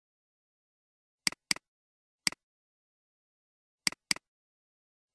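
Computer mouse clicks against dead silence, each a sharp tick with a fainter tick right after: a quick double click a little over a second in, a single click, another double click about four seconds in, and one more click at the end.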